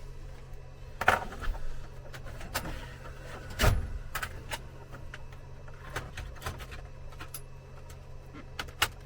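Irregular clicks and light knocks of small hand tools and a circuit board being handled on a workbench, the loudest about a second in and near four seconds in, over a steady low hum.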